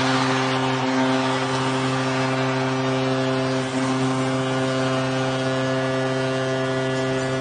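Arena goal horn sounding one long, steady, unbroken tone over a cheering crowd, signalling a home goal.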